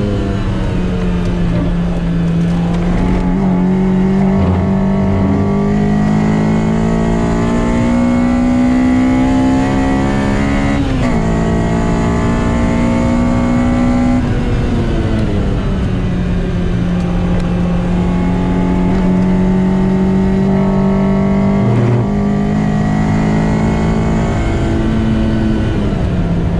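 Lotus Exige 190's four-cylinder engine under hard acceleration on a hot lap, heard from inside the cabin. Its pitch climbs steadily, drops sharply at a gear change about eleven seconds in, falls away under braking from about fourteen to sixteen seconds, then climbs again through the rest, with another drop near the end.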